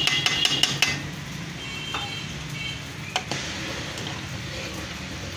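Steel ladle clinking against an aluminium pot while stirring thick kadhi: a quick run of ringing clinks in the first second, a few more about two seconds in and one more just after three seconds, over a steady low hum.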